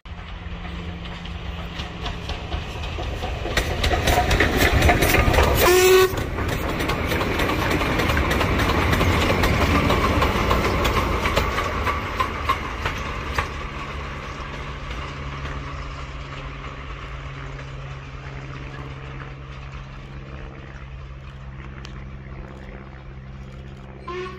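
Steam-hauled goods train passing close by, then rolling away. The sound peaks about four to six seconds in, with a brief falling tone near the peak, then the wagons clatter and rumble on the rails and slowly fade as the train recedes.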